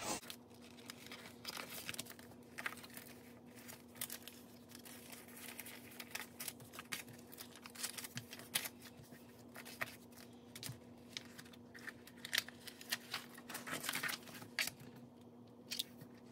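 Paper cash and envelopes rustling and crinkling as they are handled, with scattered light taps and clicks, over a faint steady hum.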